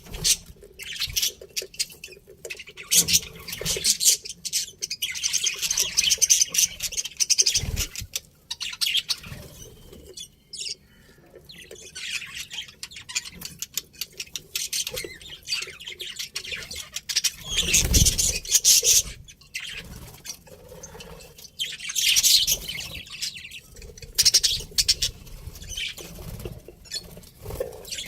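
Pet budgerigars chirping and chattering in fast, busy spells with brief lulls between them. A single dull thump sounds about two-thirds of the way through.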